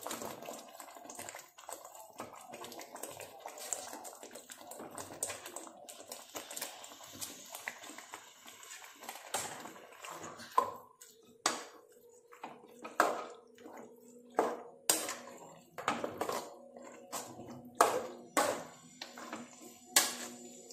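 Raw chicken pieces going into green masala frying in an aluminium kadai, with wet sizzling and squelching. About halfway through, a steel spoon starts stirring and knocking against the pan, roughly once a second.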